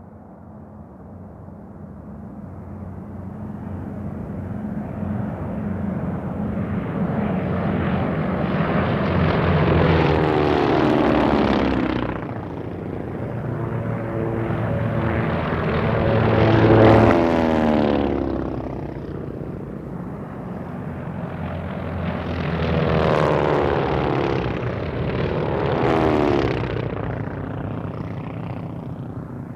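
Piston-engine propeller fighter planes: a steady engine drone swells up, then four fly-bys follow, each a falling whine as a plane passes, the second the loudest.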